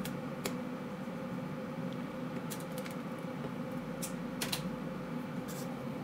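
Scattered light clicks and ticks from flower stems being handled, trimmed and pushed into an arrangement, over a steady room hum.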